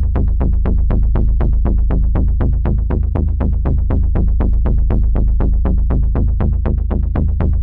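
Helicopter rotor chop as a suspense sound effect: a steady, rapid beat of blade slaps, about five a second, over a deep, continuous drone.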